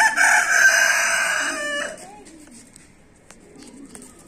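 A rooster crowing once, a loud drawn-out call that ends with a falling tail about two seconds in.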